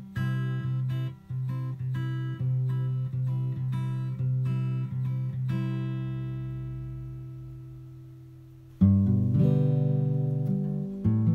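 Background music played on acoustic guitar: steady rhythmic strumming, then a last chord rings and fades out. Near the end a new, louder guitar passage begins.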